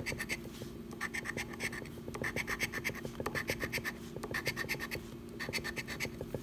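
A large metal coin scraping the coating off a scratch-off lottery ticket. It goes in quick back-and-forth strokes, grouped in about six short bursts with brief pauses between them.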